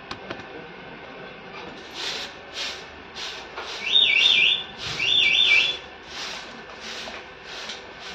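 Grass broom sweeping a dirt yard in steady strokes, about two a second. Two loud, shrill warbling chirps sound in the middle, each lasting about a second.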